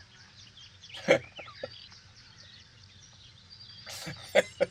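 Birds twittering faintly in the background, broken by a short loud burst about a second in and two more near the end.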